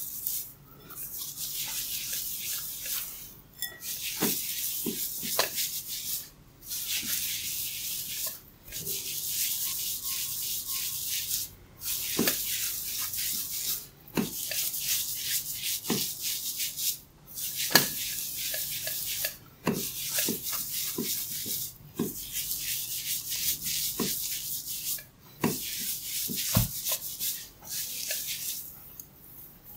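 Hands rubbing and working through a person's hair in repeated hissy strokes of about two seconds each, with sharp crackling pops between strokes: the hair cracking of a head massage.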